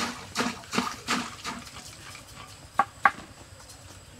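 Leafy vegetable stems rustling as they are pushed down by hand into a clay jar, a few short swishes in quick succession, then two sharp knocks in quick succession about three seconds in.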